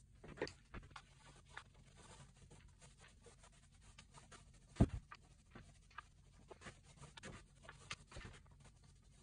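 Small paint roller rolled over a plastic stencil laid on fabric: soft scratchy rubbing with scattered clicks and taps as the stencil is handled, and one heavier knock about five seconds in.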